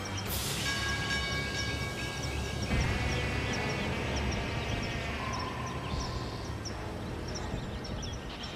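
Background score of sustained chords that change every few seconds, with a sharp swell just after the start and short high chirps repeating over it.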